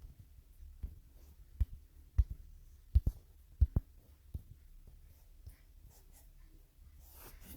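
A run of irregular soft clicks and knocks in a small room, with a breath near the end: handling noise.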